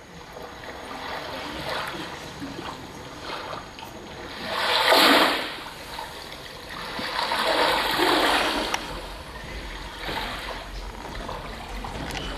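Water splashing and washing in surges, with two louder swells, the first about five seconds in and the second around eight seconds.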